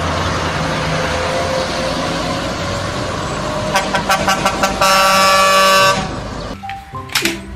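Heavy truck diesel engines running on a climb, then a run of short air-horn toots about four seconds in, followed by a long air-horn blast lasting about a second.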